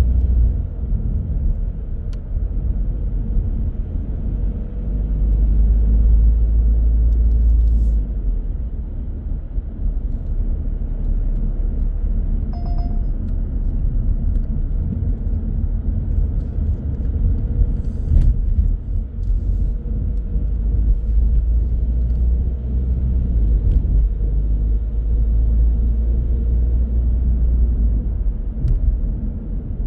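Car driving on city streets: a steady low rumble of engine and road noise that swells and eases. A short beep sounds a little before halfway.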